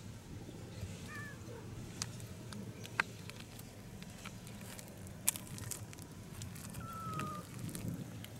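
Outdoor ambience with a steady low background hum, two brief faint bird chirps (one about a second in, one slightly falling call near the end) and a couple of sharp clicks.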